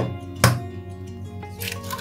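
A raw egg knocked once sharply to crack its shell, then the shell crackling briefly as it is pulled apart near the end, over soft background music.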